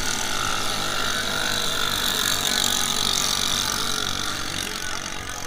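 Racing drag boat engines running at high revs, a steady high whine that swells to its loudest about halfway and then fades as the boats move off.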